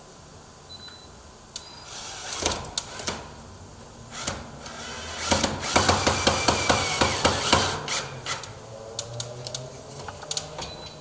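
Hand-tool work on a metal security-door header: scattered knocks and clicks, then a run of quick clicks and scrapes for about two seconds in the middle.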